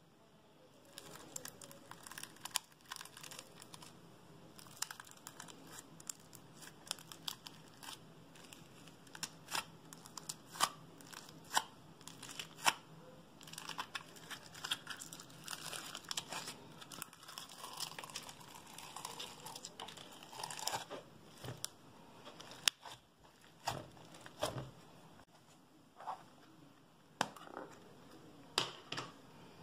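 Fingers poking, squeezing and kneading old, bubbly slime in a plastic tub, making many sharp, irregular pops and clicks as air pockets in the slime burst.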